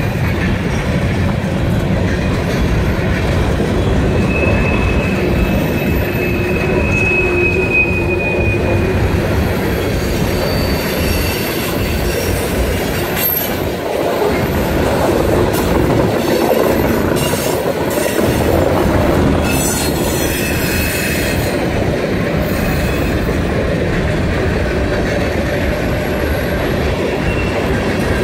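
Covered hopper cars of a freight train rolling past close by, with a steady wheel-on-rail rumble. A thin, high wheel squeal is held for a few seconds starting about four seconds in.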